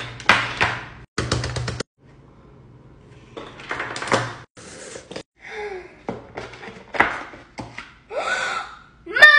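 Plastic fidget toys and a cardboard box being handled on a tabletop: a run of clicks and rattles, with several short knocks and thuds.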